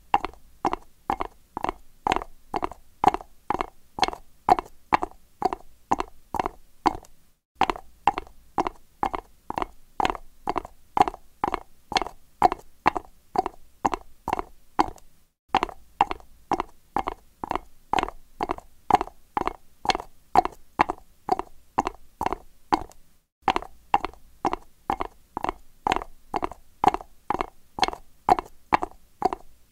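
Horse's hooves striking concrete in a steady trot, at about three sharp knocks a second. The rhythm breaks off for a moment about every eight seconds.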